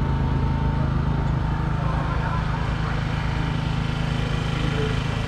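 A steady low engine drone with an even, unchanging pitch.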